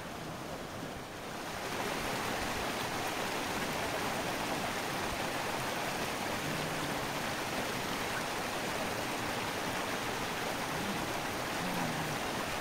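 Steady rushing noise of running water, growing a little louder a second or two in and then holding even.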